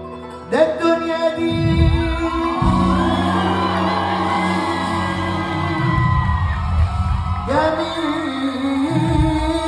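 Live band playing an Arabic song, with a male singer on microphone, heard in a large hall; the full band comes in loudly about half a second in.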